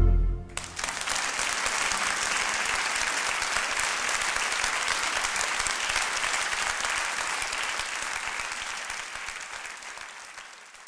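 The song's final chord rings out briefly, then an audience applauds steadily, fading away over the last few seconds.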